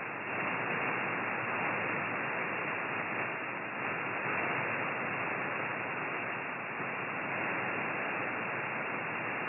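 Steady static hiss from a shortwave receiver tuned to the 20-metre amateur band, with no station audible.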